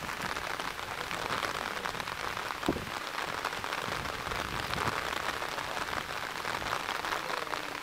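Steady rain pattering, a dense crackle with one sharper click about a third of the way in.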